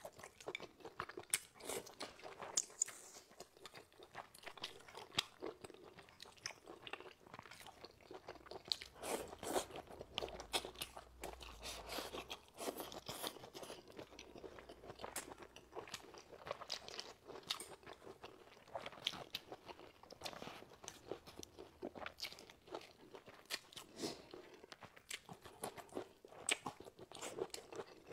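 A person biting and chewing crunchy vegetables close to a clip-on microphone: many short, crisp crunches at an uneven pace.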